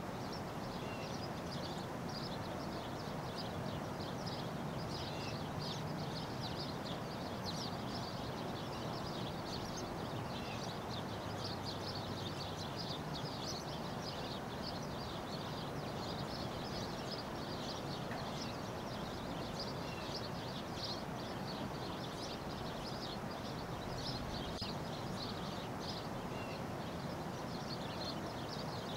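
Outdoor ambience: a steady background hiss with many small birds chirping throughout in quick, dense high notes.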